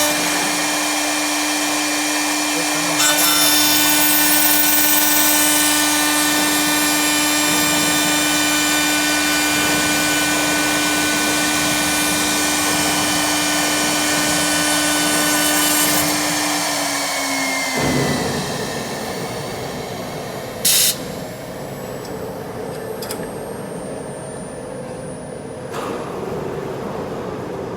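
CNC wood turning lathe running, with several steady motor whines over the noise of cutting wood. About two-thirds through, the tones glide down and stop as the machine winds down, leaving a quieter hum. A few seconds later comes one short, loud burst.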